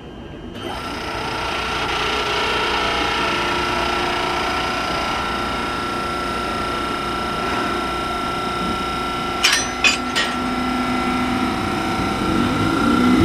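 HD300 hybrid shunting locomotive's diesel generator engine starting about half a second in, building over a couple of seconds to a steady run with a steady high whine. Three short sharp sounds come about nine and a half seconds in, and near the end rising tones begin as the locomotive starts to accelerate.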